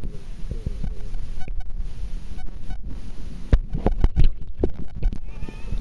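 Muffled low rumble of water against a submerged waterproof camera's microphone, with a run of knocks and bumps on the housing about three and a half to five seconds in.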